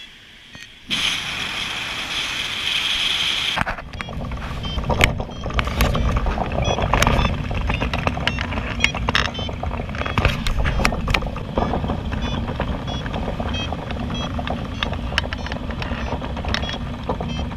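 Airflow rushing over the open cockpit of a Cumulus motorglider in flight, heard as wind on the microphone. It starts as a steady hiss, then a little under four seconds in turns to a low buffeting rumble with rapid clicks and rattles.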